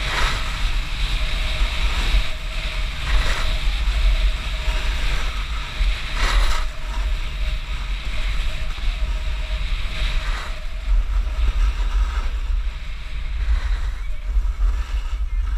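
Wind buffeting the microphone of an action camera moving downhill, over a steady hiss of sliding on packed snow, with louder scrapes about 3, 6 and 10 seconds in.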